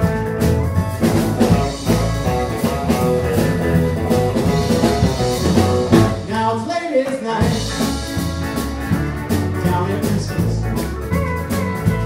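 Live country band playing an instrumental break with no lead vocal: drum kit, bass, guitars and steel guitar. About six seconds in the bass and drums drop out for about a second under a sliding note, then the full band comes back in.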